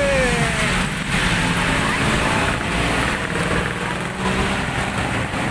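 Vehicle engines running with a steady wash of traffic noise, and a brief rising-and-falling voice-like tone at the very start.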